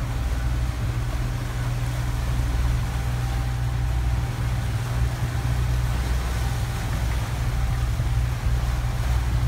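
Steady low drone of a catamaran's engine running under way, over the rushing wash of water in its wake.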